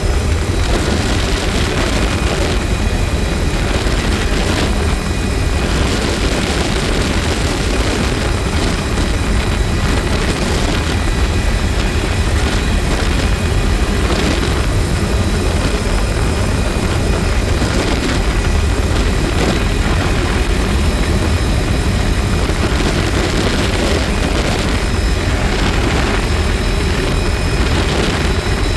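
Tour helicopter in flight with its doors off: steady loud rotor and engine noise mixed with wind rushing over the microphone.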